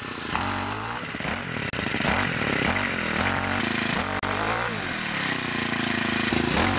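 Ryobi/Troy-Bilt four-stroke string trimmer engine running, revved up and down repeatedly with the throttle so its pitch rises and falls several times.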